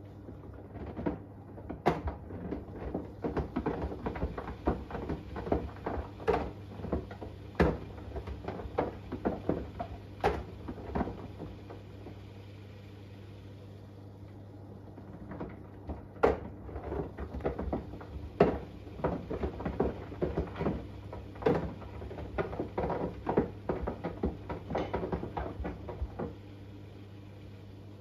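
Front-loading washing machine drum tumbling with an iPhone 11 inside, the phone knocking and clattering against the drum in irregular clunks. The drum turns for about ten seconds, pauses for a few seconds, then turns again (the usual wash rhythm), over a steady low hum.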